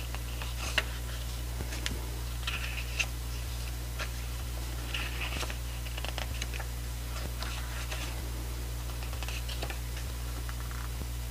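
Pages of a paper photo book being turned by hand: scattered soft paper flicks, rustles and small taps, with a sharper click about a second in and another about three seconds in.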